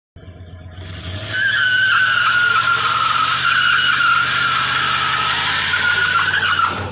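Pickup truck doing a burnout: the rear tyre squeals in a steady high tone over the running engine. The squeal gets loud about a second in and cuts off near the end.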